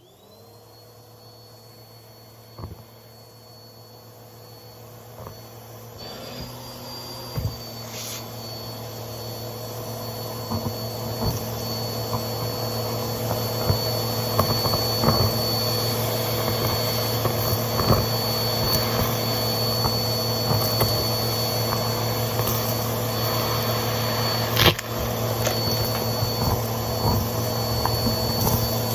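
Vacuum cleaner switched on, its motor whine rising as it spins up, then running steadily and growing louder over the first dozen seconds or so. Scattered clicks and crackles come through as debris is sucked up, with one sharp crack near the end.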